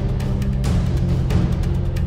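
Background music with a steady beat and sustained low notes.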